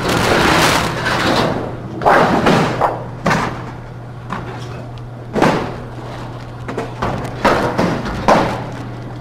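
Thin sheet metal being pulled off a slatted cutting table and handled: a rushing scrape in the first second and a half, then sharp thumps and bangs at irregular intervals as the sheets are lifted and moved. A steady low hum runs underneath.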